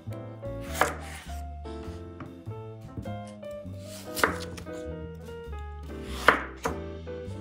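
Knife chopping on a cutting board, three loud strokes a couple of seconds apart with lighter cuts between, over background music.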